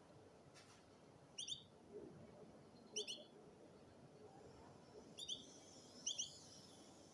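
Domestic canary giving short, sharp chirps, four of them spaced a second or two apart, several doubled, rather than a running song.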